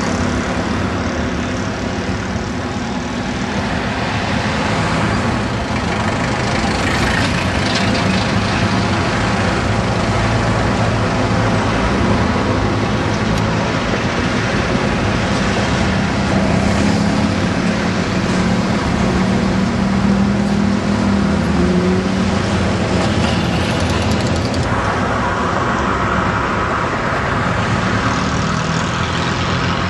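Road traffic on a city street: cars driving past with engines running and tyre noise, one passing louder in the last few seconds.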